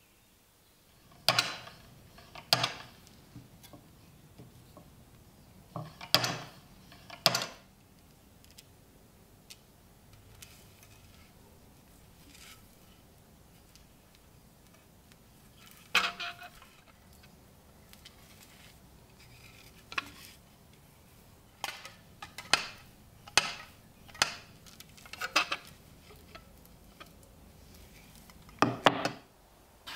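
Sharp metallic clicks and knocks at irregular intervals, some in quick pairs and a cluster near the end, from the restored tobacco cutter's steel blade, metal plates and bolts being handled and knocking against its wooden base.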